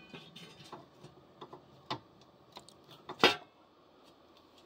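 Irregular light clicks and ticks, with one louder sharp knock about three seconds in.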